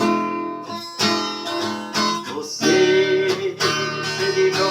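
Acoustic guitar strumming chords, with no singing.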